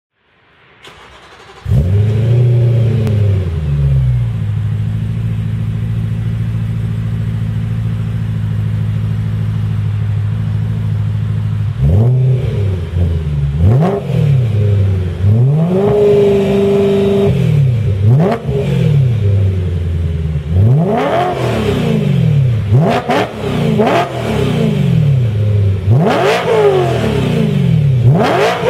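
BMW E92 M3's 4.0-litre V8 running through a full aftermarket exhaust with sports cats, centre resonators and open end pipes (valves open, race mode). It catches with a short flare of revs, idles steadily, then is free-revved in a string of short blips, one held briefly, the blips coming quicker near the end.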